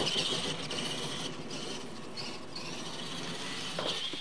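Radio-controlled Clod Buster-style monster trucks racing on dirt: the high whine of their electric motors and gear drives, dipping and coming back as the throttle changes.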